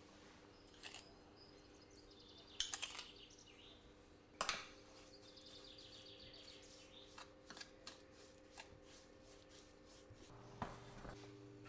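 Metal spoon stirring soft cream cheese in a dish: faint, scattered scrapes and clicks of the spoon against the dish, a few louder knocks about three and four and a half seconds in, over a low steady hum.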